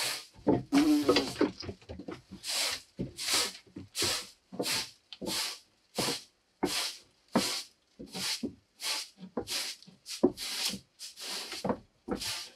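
Straw broom sweeping new wooden floorboards: a steady run of short brushing strokes, about three every two seconds.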